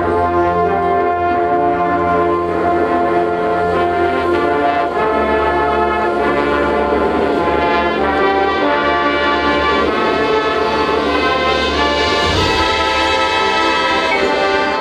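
Marching band playing: the brass section holds loud, sustained chords over the front-ensemble pit, moving to a new, brighter chord about twelve seconds in.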